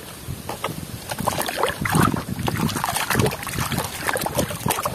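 A mud-caked toy mask being swished and scrubbed by hand in a basin of muddy water: irregular sloshing and splashing that picks up about a second in.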